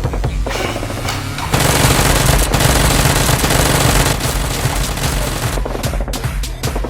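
Rapid automatic gunfire sound effects over background music, loudest and densest from about a second and a half in until about four seconds in.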